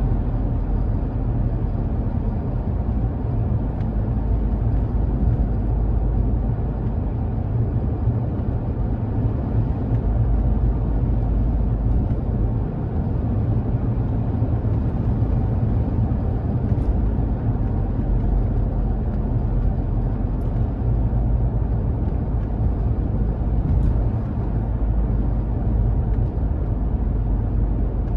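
Steady road and engine noise inside a car's cabin while cruising at speed, deep and even throughout, with a few faint ticks.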